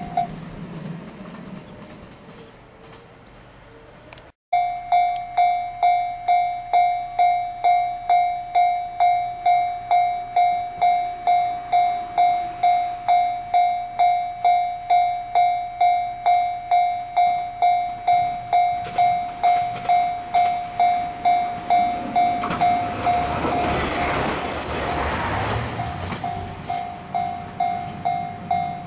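Japanese level-crossing electronic warning bell ringing in an even rhythm of about two strikes a second. A train rushes through the crossing near the end while the bell keeps ringing.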